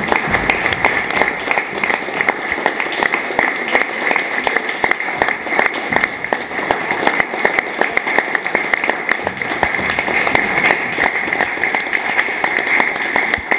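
Audience applauding at a curtain call: dense, steady clapping of many hands.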